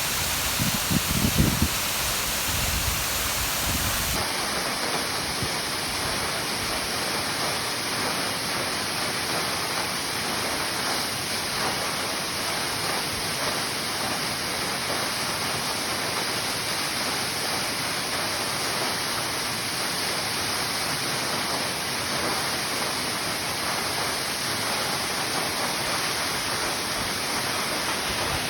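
Ryuzu Falls: a steady rush of water cascading over rock. There are a few low thumps in the first couple of seconds, and the sound changes abruptly about four seconds in.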